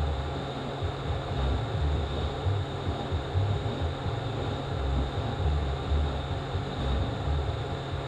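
Steady, low mechanical rumble of workshop background machinery, swelling and dipping unevenly, with a faint constant high hum over it.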